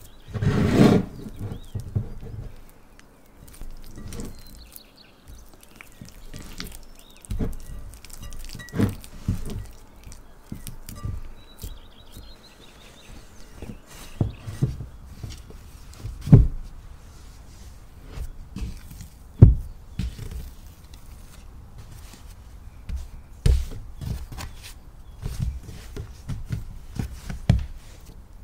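Handling sounds of sourdough dough being worked by hand: dough stretched and folded in a bowl, a cloth laid over it, then dough handled on a floured wooden board, with irregular thuds and knocks and a few sharper ones.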